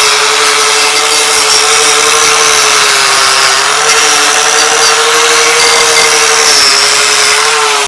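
A power wire brush running against the metal housing of a Gravely cultivator, scrubbing it clean ahead of paint. It makes a steady motor whine over harsh scratching hiss, and the pitch sags a little now and then as the brush is pressed onto the metal.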